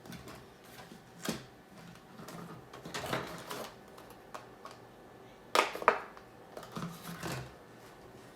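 Hard plastic and metal PC parts being handled, with scattered clicks and rustling and two sharp, loud clicks about two-thirds of the way through.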